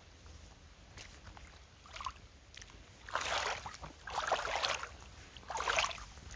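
Sergio Rossi leather high-heel boots stepping through a shallow muddy puddle: a few faint steps, then three loud splashing strides in the second half.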